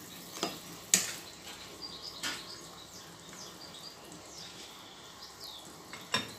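Boiling chicken broth in a stainless steel stockpot being stirred with a plastic ladle-spoon, with a few light knocks of the utensil against the pot, the sharpest about a second in.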